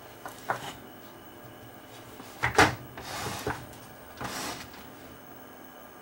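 Mitsubishi CRT television being switched on: a few light clicks, then a sharp click about two and a half seconds in, followed by two short hisses.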